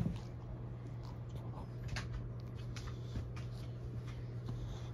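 Soft rustles and light taps of a kitten moving about on a plush blanket, over a steady low hum, with a short thump right at the start.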